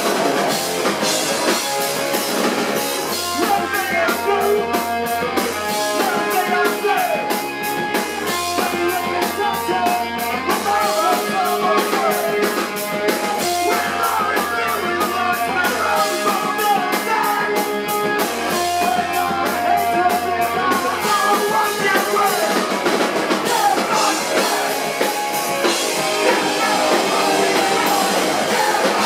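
Rock band playing live: electric guitar, drum kit and a vocalist on a microphone, the drums keeping a fast, steady beat.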